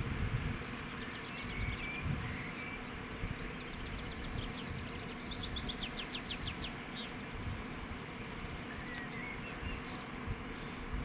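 Wind rumbling on the microphone, with small birds chirping in the background and giving a couple of quick, high trills.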